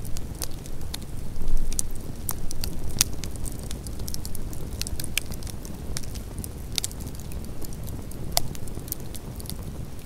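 Wood campfire crackling, with frequent irregular sharp pops and snaps over a steady low rumble, and a brief louder swell about one and a half seconds in.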